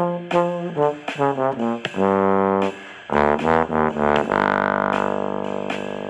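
Solo trombone playing quick detached notes in falling runs, then settling about four seconds in on a long held note that slowly fades.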